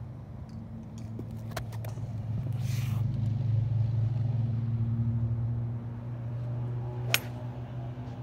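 Low motor-vehicle engine hum that swells for a few seconds and then eases off, as a vehicle passes. A single sharp click comes near the end.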